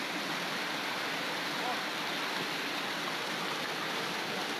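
Hailstorm: hailstones falling and hitting the ground in a dense, steady rush of noise.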